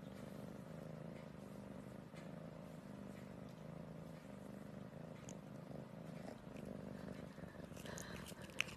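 A domestic cat purring steadily and faintly while its face is stroked with a soft brush, with a small click near the end.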